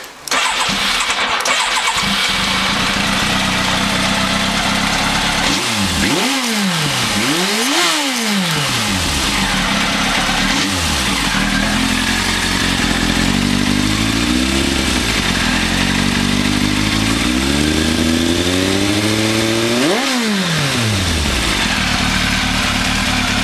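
1996 Yamaha YZF-1000R Thunderace's 1002 cc inline-four firing up and running loud with a deep exhaust note. The throttle is blipped several times, each rev rising and falling quickly (two close together about six to eight seconds in, the last about twenty seconds in), with a slow climb in revs between them.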